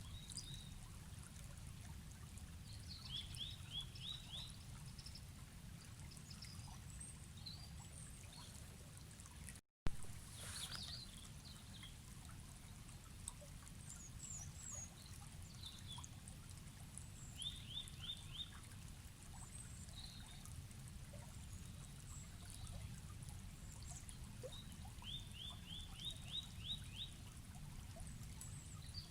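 Forest river ambience: a steady low rush of flowing water with small birds chirping over it, including a few short, fast runs of repeated notes. About ten seconds in the sound drops out for a moment and comes back with a click.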